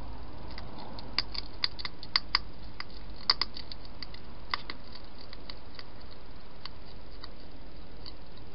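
Wild hedgehog eating and chewing food at a feeding dish, an irregular run of sharp crunching clicks that comes thickest in the first half and thins out after about five seconds.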